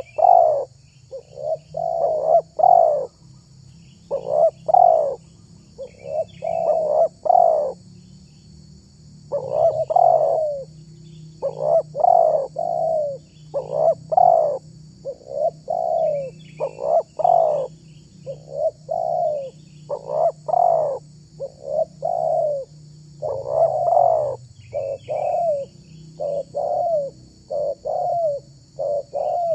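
Spotted dove (tekukur) cooing over and over in short phrases of two to four notes. Faint chirps of small birds and a steady high insect drone sound behind it.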